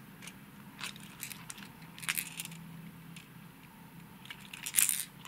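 A handheld hard plastic fishing lure (a wobbler), with a few small metallic clinks and jingles from its treble hooks and split rings, loudest in a quick cluster near the end.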